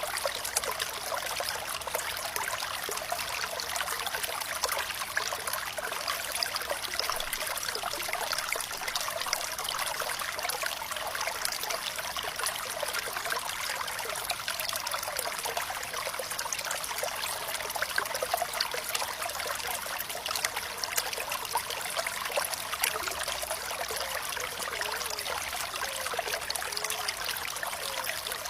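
Shallow stream water running and trickling steadily, with many small bright splashes and gurgles and no deep rumble.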